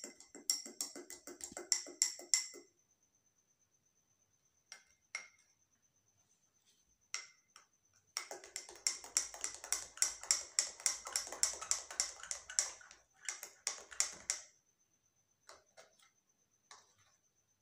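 Metal spoon stirring talcum powder into water in a drinking glass, clinking rapidly against the glass with a light ring. There is a short run of stirring at the start, a few single taps, then a longer run of about six seconds from a third of the way in.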